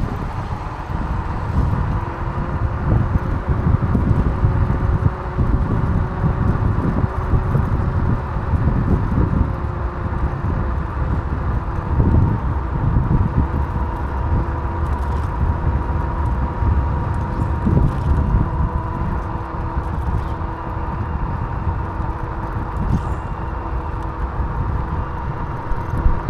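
Wind buffeting the microphone of an action camera on a moving bicycle: a continuous, loud low rumble that swells and dips, with a faint steady hum underneath.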